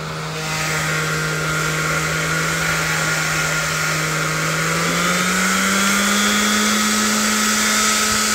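DeWalt DCW210 20V brushless random orbital sander running unloaded, its pad spinning freely after the jammed bearing was cleaned and lubricated and melted plastic around it smoothed off. A steady motor hum and whine over a hiss, rising slightly in pitch about five seconds in.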